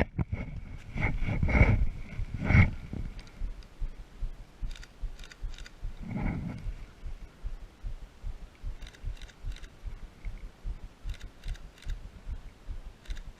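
Footsteps of someone walking on the forest floor, about two steps a second, with a few heavier thumps in the first few seconds and short crackles now and then.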